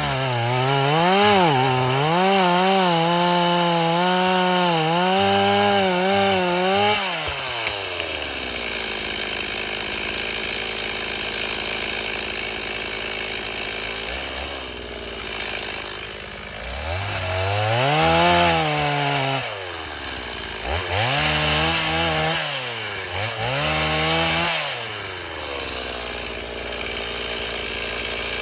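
Chainsaw revved to full throttle and let back down to idle several times: one long high run for about the first seven seconds, a long idle, then three shorter revs in the second half before it settles to idle again.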